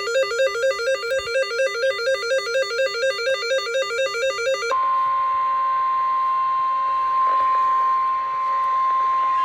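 NOAA Weather Radio alert signal. First comes the rapid, buzzy warble of the digital SAME header data tones. About five seconds in it switches to the steady 1050 Hz warning alarm tone, a single unbroken high beep announcing a warning.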